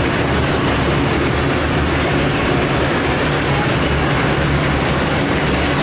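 Steady low rumble under a dense, even wash of background noise, with no single sound standing out: busy street-market ambience.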